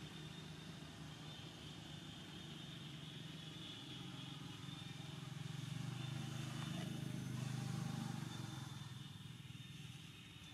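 Low engine hum of a motor vehicle passing at a distance, growing louder about halfway through and fading near the end, over a steady high-pitched whine.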